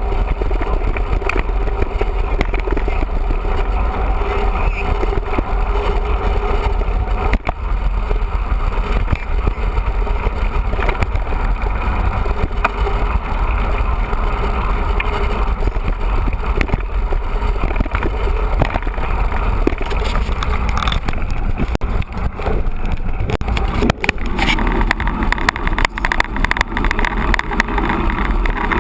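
Wind rumbling on the microphone of a camera on a moving mountain bike, with a steady rush of tyres and frequent small rattles and knocks, which get busier near the end.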